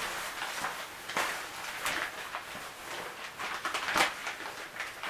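Rustling of a shower curtain and fabric liner being handled and lined up against each other, with a few sharper short crinkles or taps about one, two and four seconds in.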